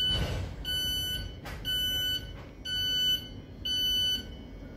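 Thameslink train's door alert beeping five times, each beep about half a second long and about one a second, as the doors open at a station stop. A short rush of noise comes with the first beep.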